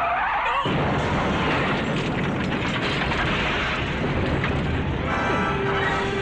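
Action-film explosion: a loud, dense roar that breaks in just under a second in and lasts about four seconds, then gives way to a few steady tones.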